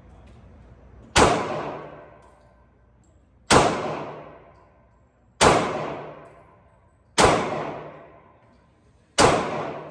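Five pistol shots from a Glock 23 firing .40 S&W, spaced roughly two seconds apart, each sharp crack trailing off in a long echo.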